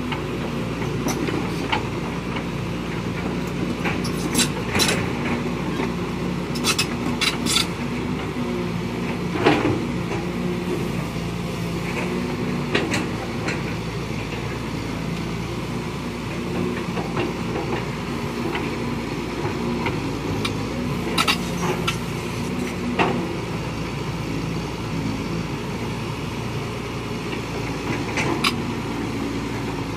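Caterpillar 320C hydraulic excavators' diesel engines running steadily under digging load, with several sharp metallic clanks from buckets and tracks scattered through.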